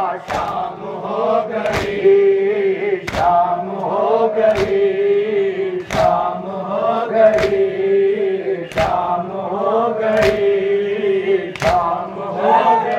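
A crowd of men chanting a Muharram noha lament in unison, with synchronized matam: hands striking chests together in a steady beat of about one strike every second and a half.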